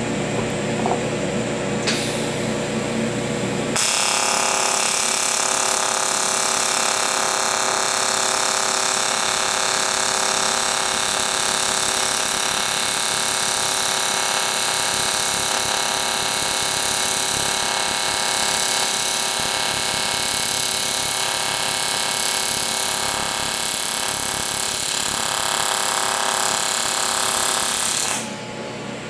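Aluminium TIG welding arc run on AC at a low 35 Hz AC frequency: a steady, coarse buzz that starts about four seconds in and cuts off shortly before the end.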